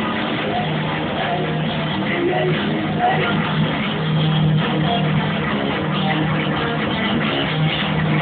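Live rock band playing: electric guitars strumming over drums and a steady low bass note, continuous and loud.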